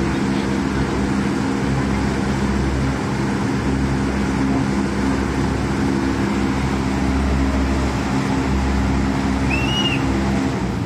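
Large wind machine fan running steadily: an even rush of air over a low hum with several steady tones. A brief high chirp sounds near the end.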